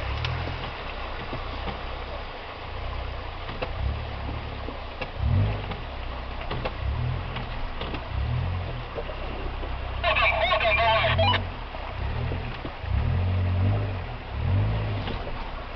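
Off-road vehicle engine running at low revs during a winch-assisted stream crossing, its low rumble swelling and fading unevenly. A brief high, wavering sound cuts in about ten seconds in.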